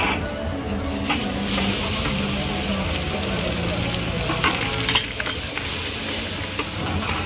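Hot oil sizzling in a large steel wok as ingredients are fried and stirred, with the metal ladle and spatula scraping and clanking against the wok a few times, about a second in and again around four to five seconds in.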